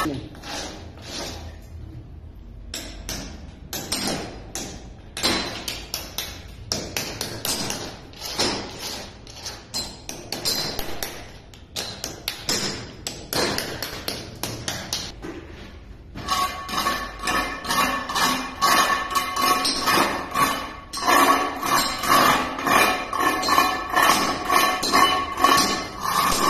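Irregular metallic tapping and knocking strikes. About sixteen seconds in they become a denser, continuous run of rapid strikes with a steady ringing tone underneath.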